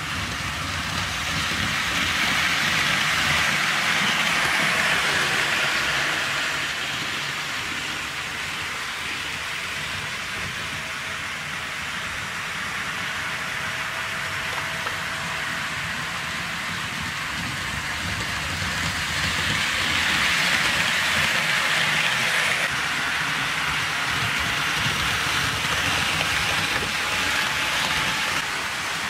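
HO scale model train running on sectional track: a steady rolling noise of wheels on rails. It grows louder as the train passes close by, about two seconds in and again from about nineteen seconds.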